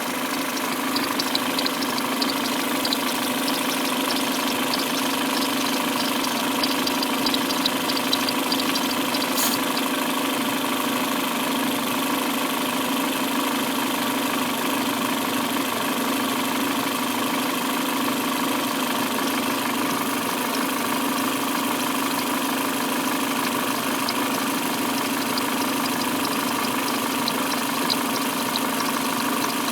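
Peugeot 307's EW10J4 2.0-litre 16-valve petrol engine idling steadily, with a rapid, high chirping squeak from the timing-belt tensioner roller. The chirps are strongest in the first ten seconds and come back faintly near the end. The owner takes the squeak for a faulty tensioner roller.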